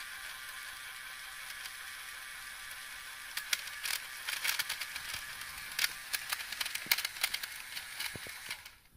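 LEGO Power Functions motor and gear train of a toy shredder whirring steadily. From about three seconds in come irregular sharp cracks and clicks as Shreddies cereal is chopped by the blades. The motor stops shortly before the end.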